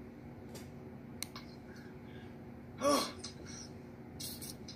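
A person's short voiced gasp about three seconds in, its pitch rising then falling, over a steady low hum, with a brief hissing noise near the end.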